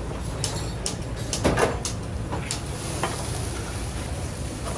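Restaurant kitchen at work: a steady low rumble from the gas stoves, with a string of metal clanks and knocks from steel pans and a pasta cooker basket.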